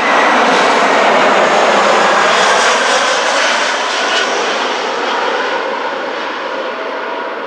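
Airbus A320-family jet airliner passing low overhead on landing approach, a loud rush of jet-engine noise with a faint whine that is loudest in the first few seconds and then slowly fades as it flies away.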